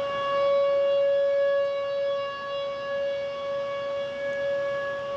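Outdoor civil-defense warning siren sounding a steady, held tone that swells and fades slightly in loudness, signalling a tornado warning.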